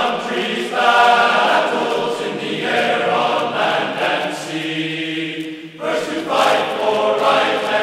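Background music of choir-like singing, voices holding long notes that change every second or two.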